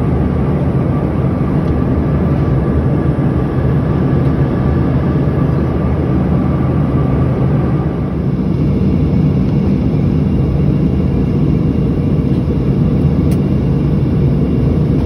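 Steady engine and air noise inside an airliner cabin in flight, heavy in the low end, with a faint steady whine that fades out about halfway through.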